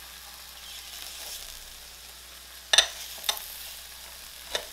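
Fried eggs, sausages and ham sizzling steadily on a griddle, with a sharp clink nearly three seconds in and a few lighter clicks after as glass bowls are set down over the eggs to steam their tops.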